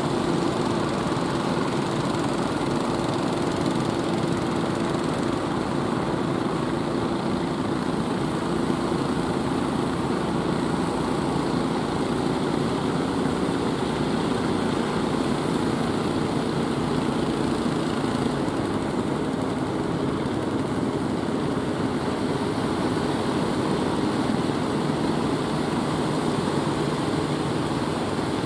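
Engines of outrigger fishing boats running steadily and hard as the boats push through breaking waves, exhaust smoking, over the wash of the surf.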